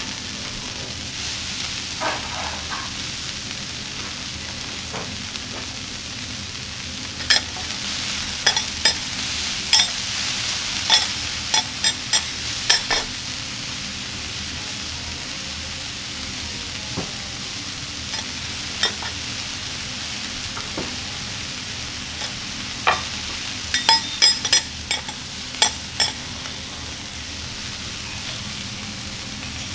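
Beef and bean sprouts sizzling on a hot steel teppanyaki griddle, a steady hiss. Over it, metal spatulas clack and scrape on the plate in a flurry about a third of the way in and another near the end.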